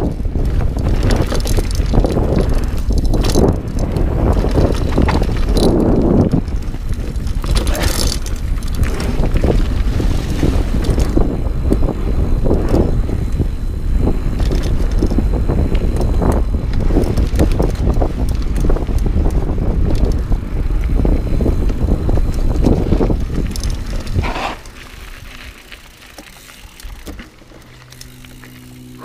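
Dartmoor Primal hardtail mountain bike ridden fast down a dirt forest trail: tyre noise on the dirt, rattles and knocks from the bike over bumps, and wind buffeting the camera microphone. About 24 seconds in, the bike slows and the noise drops off sharply.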